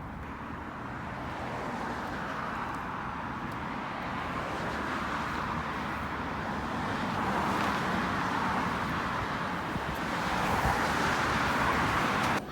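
Road traffic noise that swells louder a couple of times, as if vehicles are passing, and cuts off suddenly at the end.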